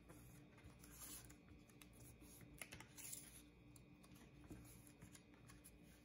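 Very faint paper handling: scattered soft rustles and light taps as patterned paper is pressed and folded over the edges of a chipboard piece on a cutting mat.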